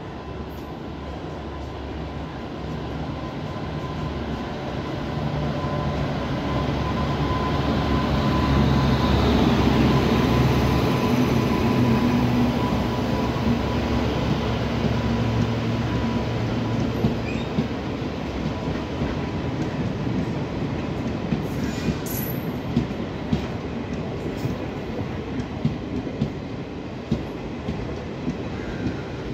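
WAP-7 electric locomotive passing with a steady hum, loudest about ten seconds in, then its train of coaches rolling by with sharp clicks of the wheels over the rail joints.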